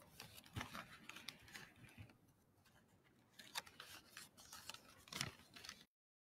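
Faint handling noise at a lectern microphone: rustling and light scratchy clicks in two bouts. About six seconds in, the sound cuts out completely.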